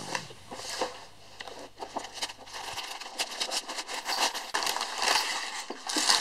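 Gift wrapping paper being torn open and crumpled: irregular rustling and crackling that grows denser and louder near the end.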